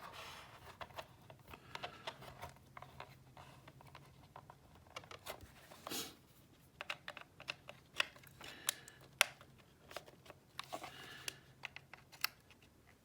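Faint, irregular small clicks and scrapes of a hex key turning the screws that fasten a QLS fork to a holster, as each screw is tightened down.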